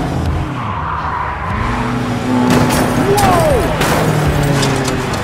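Dubbed race car engine and tire-squeal sound effects over a diecast toy-car race: a steady engine drone with a falling screech about three seconds in, and a cluster of sharp clattering knocks as a toy car tumbles over on the track.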